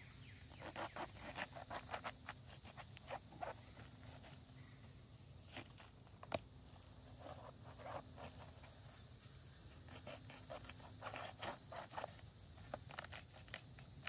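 Kitchen knife cutting the core out of a raw green cabbage: quiet, irregular clusters of short crisp cuts and crunches, with one sharper click about six seconds in.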